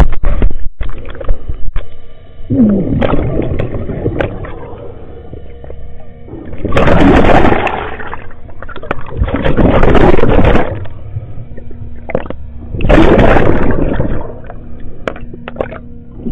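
CAT excavator working in water: its engine runs steadily while loud rushes of churning water come and go about every three seconds.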